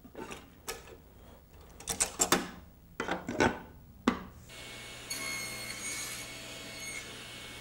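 Wooden handscrew clamp being tightened on a board at the table saw fence: scattered wooden knocks and rubbing as the clamp and boards are handled. About halfway through a faint steady hum sets in.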